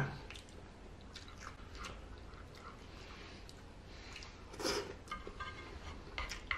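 Close-up chewing of a mouthful of cheesy meat spaghetti, with small wet mouth clicks throughout. There is a louder noisy burst a little past halfway as a chopstick-load of noodles goes into the mouth. Sharp clacks of wooden chopsticks against the metal pan come at the very start and again near the end.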